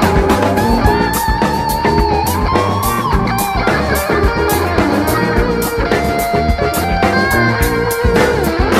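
Electric guitar improvising a lead solo, with sustained and bent notes, over a funk backing track of electric bass and drums.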